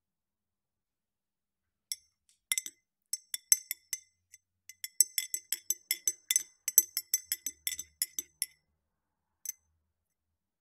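A metal spoon stirring in a ribbed glass of tea, clinking against the inside of the glass. A couple of clinks come about two seconds in, then a quick run of bright, ringing clinks for several seconds, and a last single clink near the end.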